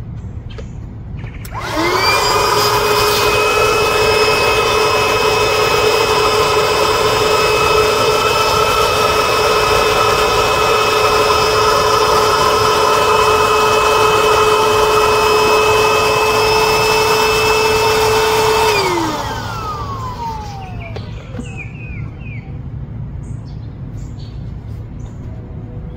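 Small 12-volt electric air pump inflating an air pillow. It starts a couple of seconds in with a quick rise in pitch, runs with a steady whine for about seventeen seconds, then is switched off and winds down with a falling pitch.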